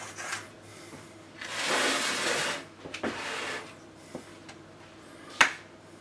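Metal palette knife spreading cake batter inside an aluminium cake ring. It scrapes and smears through the batter for about a second, starting about one and a half seconds in, then again more briefly at three seconds. A single sharp click comes near the end.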